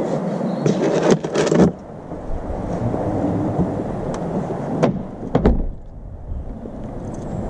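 Rumbling noise from walking with a head-strapped GoPro Hero 5 Black, with a burst of crackles about a second in and two sharp knocks around five seconds in.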